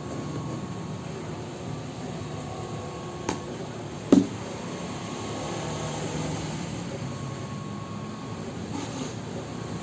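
Paint-mixing machine running steadily with a low mechanical rumble, with two sharp knocks about three and four seconds in.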